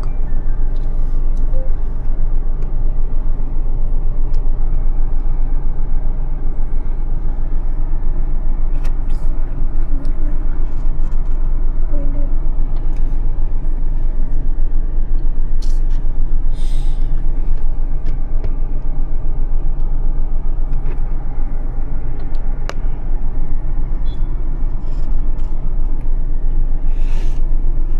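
Steady road and engine drone heard from inside a moving car's cabin, with a few brief high ticks or rattles.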